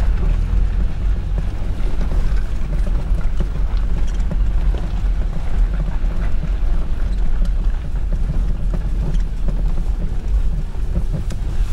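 Four-wheel-drive vehicle driving on a rough dirt track, heard from inside the cab: a steady low engine and tyre rumble with a few small knocks.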